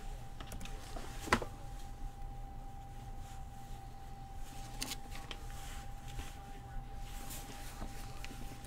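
Quiet room tone with a steady high-pitched electrical hum over a low hum, broken by one sharp click about a second in and a few softer clicks and rustles later on.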